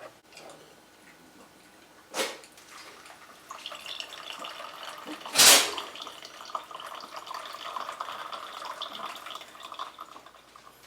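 Water running for several seconds, starting about three and a half seconds in, with a light knock shortly before it and a sharp, louder clatter near the middle.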